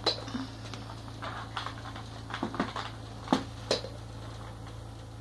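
Irregular light clicks and taps, about a dozen, from a small pet moving about and playing on a hard floor. The sharpest come a little past three seconds in, over a steady low hum.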